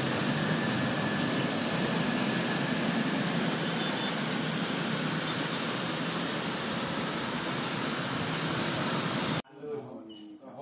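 Steady, even rushing of rain over a city street with traffic. Near the end it cuts off suddenly to a quiet night with crickets chirping and a voice.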